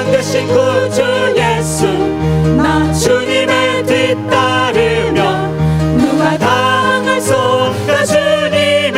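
A group of worship singers singing an upbeat Korean praise song through microphones, over an amplified instrumental accompaniment with a bass line that changes note every second or so.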